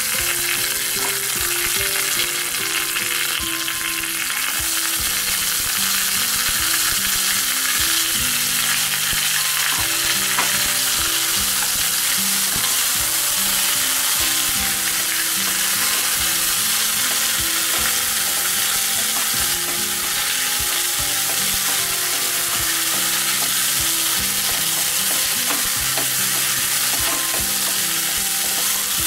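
Hot oil sizzling steadily in a nonstick wok as a mustard-seed and curry-leaf tempering fries with apple pieces, stirred with a wooden spatula.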